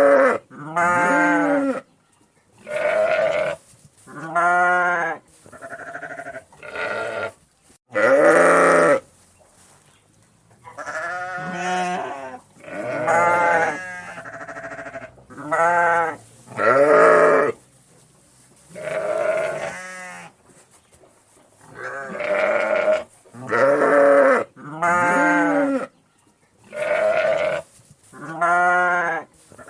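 Sheep baaing over and over, a call every second or two, each baa a short wavering bleat that rises and falls in pitch.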